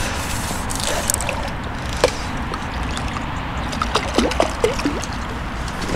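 Water splashing and trickling as a hooked F1 carp is played and drawn to the landing net, with scattered small clicks and a few short falling squeaks around the middle.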